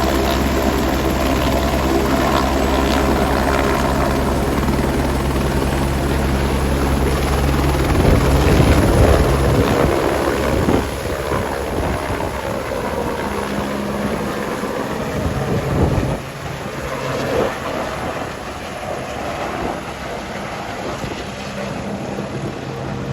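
Helicopter running, a steady low beat with a loud rushing surge about eight seconds in, then growing fainter as it flies off carrying skydivers up to jump altitude.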